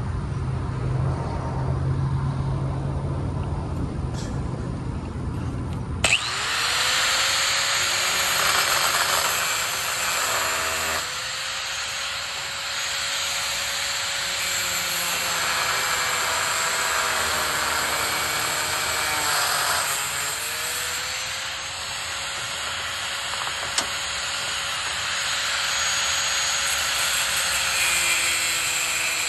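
A cordless grinder starts suddenly about six seconds in and runs with a steady high whine while cutting, its motor sagging under load and picking back up around the middle and again later. Before it starts there is a low steady engine-like hum.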